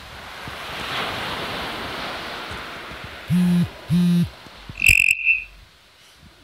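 Surf washing up a shingle beach, then two short, loud, low steady tones about half a second each, followed by a sharp click and a brief high beep, after which the sound drops away.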